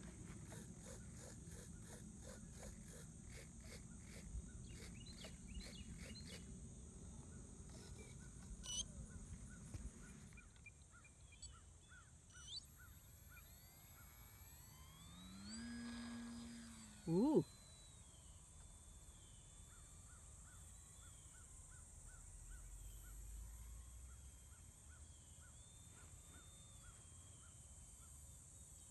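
Insects buzzing steadily, with evenly spaced chirps, in a grassy field. About halfway through, a foam-board RC plane's electric motor whines briefly, its pitch bending, as the plane takes off.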